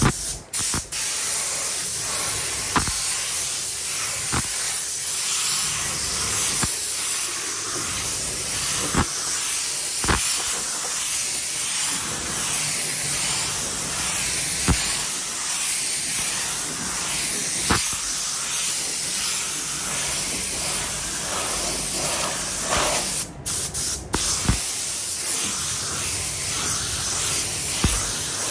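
Compressed-air paint spray gun spraying with a steady hiss. The hiss cuts out briefly as the trigger is released, once right at the start and twice about three-quarters of the way through, with a few faint clicks in between.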